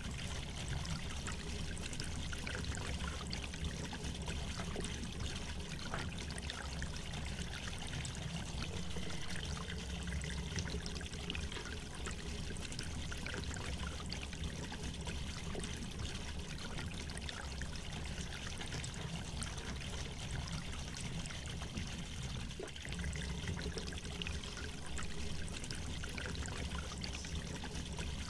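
Steady rushing noise with a low hum beneath it and faint scattered ticks.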